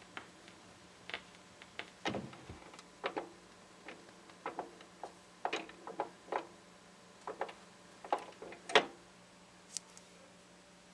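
Scattered, irregular clicks and light knocks from a turntable as a 45 rpm single spins down to a stop after the song has ended, over a faint steady hum. The sharpest click comes near the end.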